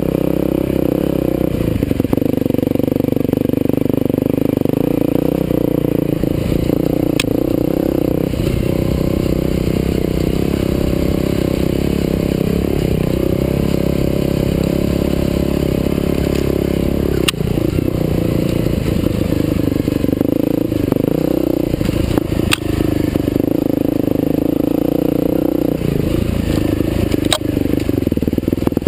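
Husqvarna TE511 dirt bike's single-cylinder four-stroke engine running on the trail, its speed rising and falling a little with the throttle. A few sharp clicks break in, spread out across the stretch.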